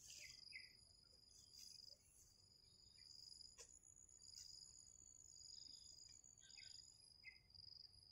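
Faint insects trilling: a high, thin chirping that comes in repeated stretches of a second or so with short gaps, and a light click about three and a half seconds in.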